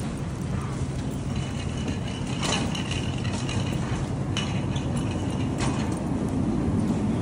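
Shopping cart rolling over a concrete floor: a steady low rumble from the wheels, with a few sharp rattles of the metal cart.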